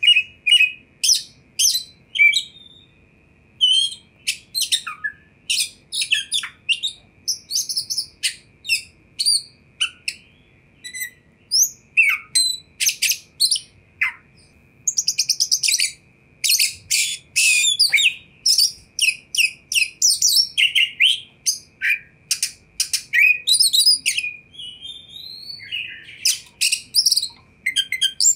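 Oriental magpie-robin (kacer) singing loudly: a varied string of short, sharp whistles and chattering notes, with a rapid rattling burst about halfway through and slurred rising whistles here and there.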